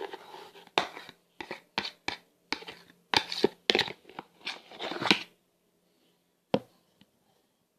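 A fork stirring glitter glue in a small pot: irregular sticky scrapes and clicks of the fork against the pot for about five seconds, then it stops, with one more click a second later.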